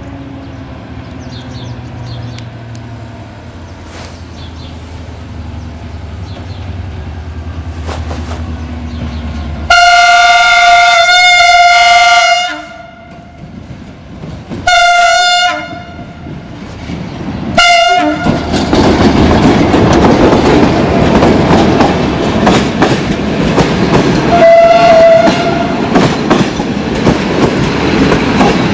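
CFR class 65 diesel locomotive hauling a passenger train: a low engine drone, then about ten seconds in the horn sounds three times, a long blast, a shorter one and a brief toot. The locomotive and coaches then pass close, with loud wheel clatter over the rail joints and one more short horn note near the end.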